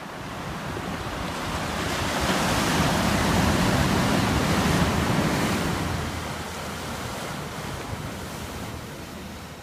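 Sea surf washing over a rocky shore: one long surge that builds over a couple of seconds, holds, then slowly dies away.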